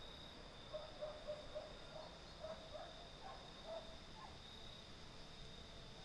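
Faint outdoor ambience with a steady, high-pitched insect trill. A run of short, lower chirps comes between about one and four seconds in.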